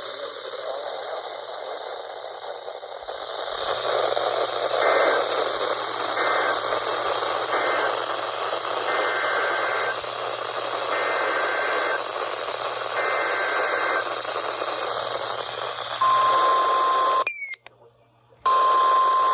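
Weather radio reception full of static hiss, with short two-pitch data bursts of an Emergency Alert System header coming faintly through it several times. Then a loud, steady single-pitch weather radio alert tone sounds, breaks off for about a second, and resumes.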